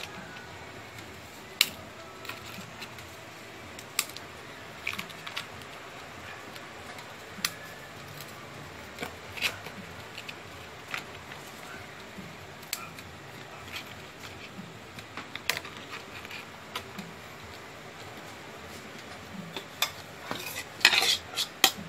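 Graham crackers and broken cracker pieces being laid and pressed into a plastic container, giving scattered light clicks and taps, with a quick run of louder clicks near the end.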